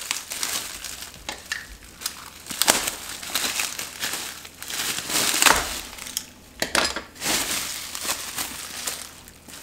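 Plastic bubble wrap being cut open and pulled off a metal plant stand, crinkling in irregular bursts.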